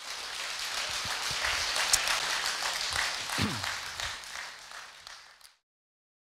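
Audience applauding, fading and then cutting off shortly before the end.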